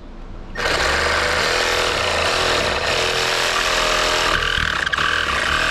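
Milwaukee jigsaw running steadily as it cuts through a plastic motorcycle fairing. It starts about half a second in, and its note shifts a little about four seconds in.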